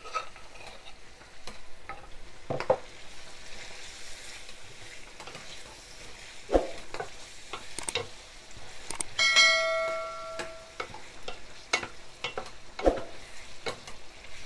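Beef pieces sizzling as they fry in a pan, stirred with a wooden spatula that scrapes now and then. About nine seconds in, a bell-like chime rings for about a second and a half.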